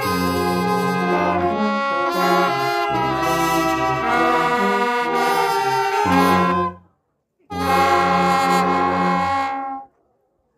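Mexican banda de viento playing, brass and wind instruments over a sousaphone bass line. The music breaks off for a moment about two-thirds through, then returns as a long held chord that cuts off near the end.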